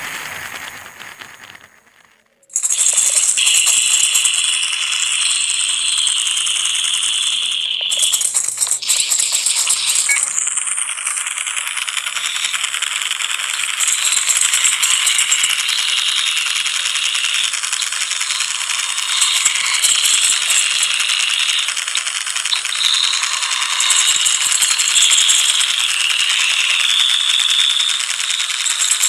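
A steady, loud rattling hiss with no low end, like a shaker being shaken continuously. It starts abruptly about two and a half seconds in, after the earlier sound fades out.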